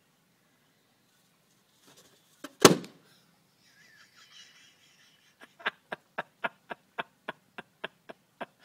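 A rubber party balloon bursting with one loud, sharp pop as a ferret bites into it. A few seconds later comes a run of about a dozen short clicks, three or four a second.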